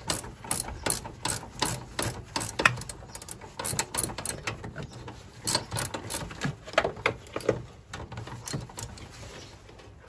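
Hand socket ratchet clicking as it backs off the mounting nuts of a clutch master cylinder. The sharp clicks come about three a second, then slow and fade over the last few seconds.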